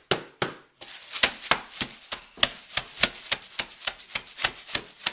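A steady run of sharp taps or knocks, about three a second, after a brief pause near the start.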